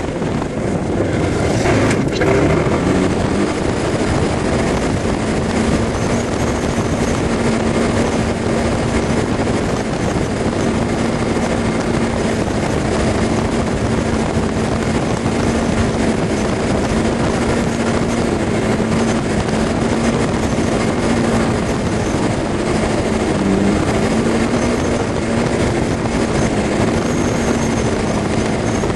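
Steady, dense rushing noise with a constant hum from a Suzuki Burgman 400 scooter's engine, tyres and wind at motorway speed, sped up sixteen times.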